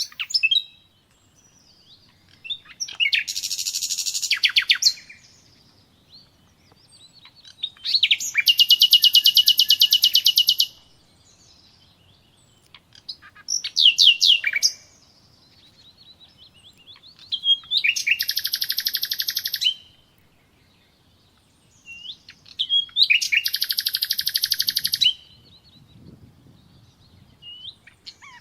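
A songbird singing: five phrases of rapid, high trills, each one to three seconds long, with short pauses between them.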